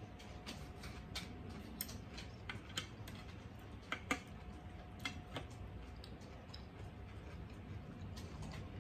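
Eating sounds: scattered sharp clicks of chewing and chopsticks tapping a plate, loudest about four seconds in, over a steady low background hum.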